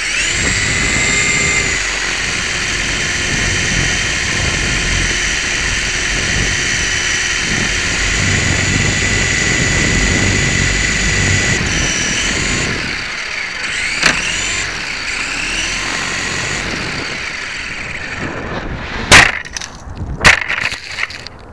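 Syma S031 toy helicopter's small electric motors and rotor whining steadily, heard from a keychain camera mounted on it, with wind rumbling on the microphone. Near the end come two loud crashes as the helicopter is blown into trees and hits hard.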